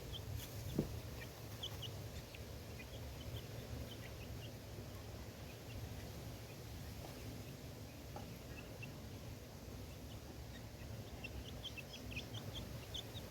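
Young chickens giving short, faint, high cheeps here and there, more of them near the end, over a low steady background rumble.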